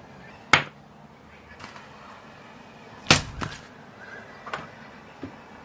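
Crunchy slime crackling and snapping as it is pressed and worked by hand, in sharp separate cracks. One loud crack comes about half a second in, a louder cluster comes around three seconds in, and a few fainter snaps follow.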